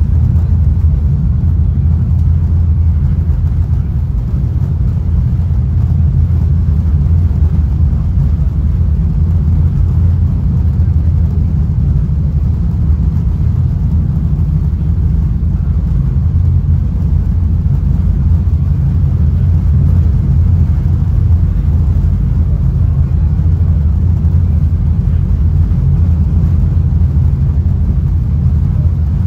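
Steady low rumble inside a Caltrain Gallery passenger car running at speed, its wheels rolling on the rails.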